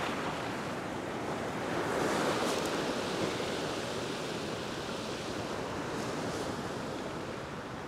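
Ocean waves washing across a flat rock shelf, a steady rushing surge that swells about two seconds in and then eases.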